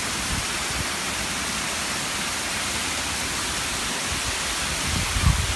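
Heavy rain pouring down in a severe thunderstorm: a steady, even hiss, with a few low thumps near the end.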